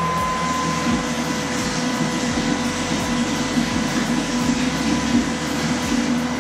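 Wort pumped through a hose and splashing into a stainless bucket fermenter, with the small transfer pump running: a steady rushing, splashing noise.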